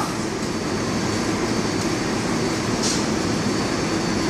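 A New York City subway train standing at the platform with its doors open, its air-conditioning and under-car equipment humming steadily. A brief hiss comes about three seconds in.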